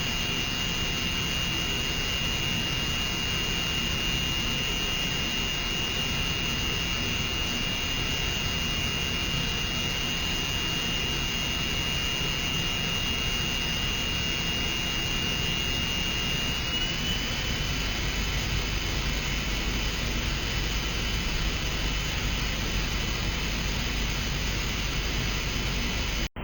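DMG Mori DMU 60 vertical machining center running under power: a steady mechanical whir with a thin high-pitched whine that shifts slightly in pitch about two-thirds of the way through.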